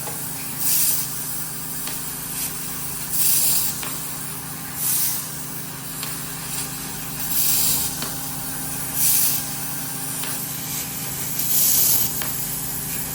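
1.5 kW CNC fiber laser cutting machine cutting thick steel plate: a steady machine hum with short bursts of hissing assist gas at the cutting head, recurring every one and a half to two and a half seconds.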